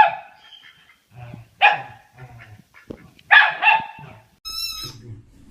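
A dog barking several times, a bark about every second and a half, followed near the end by a brief high-pitched squeal.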